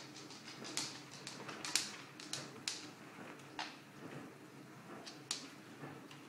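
Pet rats feeding at a food bowl in their cage: irregular sharp clicks and taps, the loudest about two seconds in.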